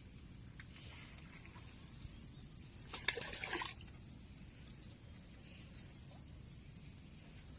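Water splashing and sloshing briefly about three seconds in, over faint steady background noise.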